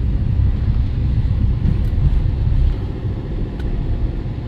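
Steady low rumble of a moving car's engine and road noise, heard from inside the cabin; it eases a little about two-thirds of the way through.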